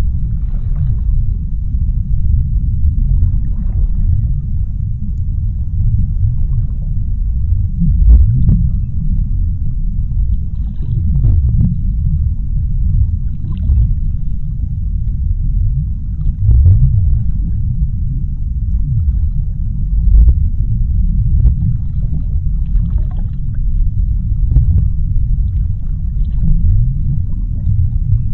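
Underwater ambience: a deep, steady rumble with faint, scattered bubbling clicks now and then.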